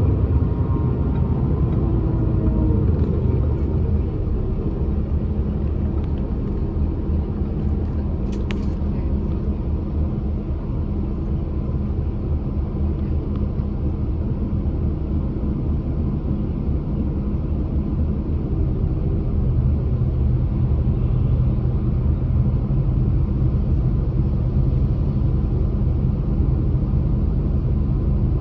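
Bus engine and cabin rumble heard from inside the bus, falling in pitch as it slows in the first few seconds, then idling steadily while stopped. A brief click about eight seconds in.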